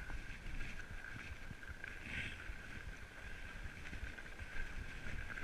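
Fat-tire bike rolling over a packed-snow trail: uneven low rumble and small knocks from the tires and frame over bumps, with a steady high-pitched whine.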